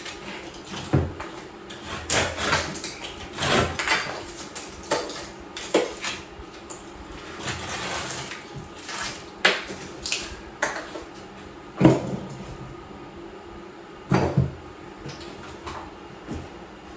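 Hard clinking, knocking and scraping of ceramic tile pieces and hand tools as tile is removed from a shower wall, in irregular strikes with a few sharper knocks.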